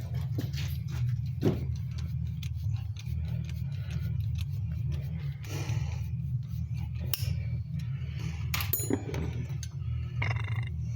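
Small metal parts and hand tools clinking and scraping, in scattered short clicks, over a steady low hum.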